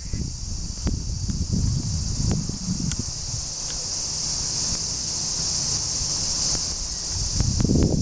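Cicadas singing in a steady, dense high-pitched chorus. Under it is a low rumble that comes and goes, heaviest near the end.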